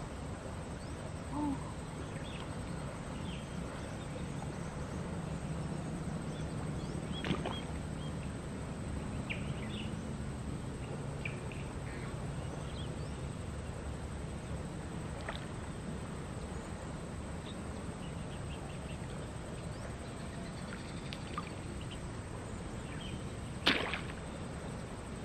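Riverside ambience with a steady low background and scattered short faint chirps. Near the end a sharp swish and splash stand out, the loudest sound, as a spinning-rod cast sends the lure out onto the river.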